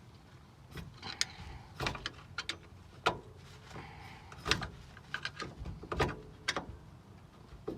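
Irregular metal clinks, knocks and short scrapes of a screwdriver and bolt working against the steel shock mount as the shock's eye is pried into line with the bolt hole. The loudest knocks come about three, four and a half and six seconds in.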